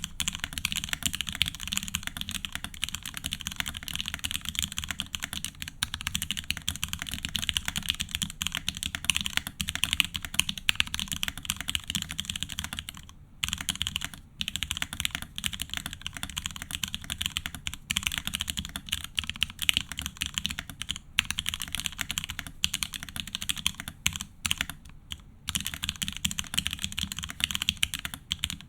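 Continuous typing on a Keycult No.2 mechanical keyboard with lubed vintage Wyse black (Cherry MX Black) linear switches, muted PBT keycaps and an aluminium plate: a dense stream of key strokes, with brief pauses about 13 and 25 seconds in.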